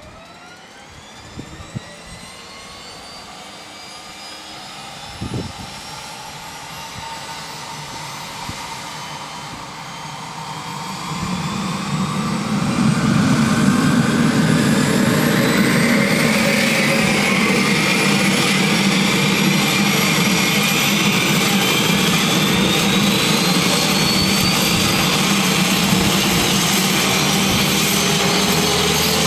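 Bell 212's Pratt & Whitney PT6T Twin-Pac turboshaft engines starting up: a turbine whine that climbs steadily in pitch, grows much louder about twelve seconds in with a heavier low rumble added, then runs loud and steady while the whine keeps slowly rising as the rotor spins up.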